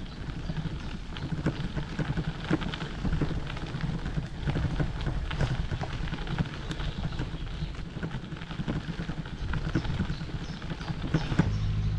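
Bicycle tyres rolling over a gravel towpath: a dense crackle of small stones and ticks with a low rumble underneath. Just before the end it cuts to a steady low drone, the engine of a canal hire boat running.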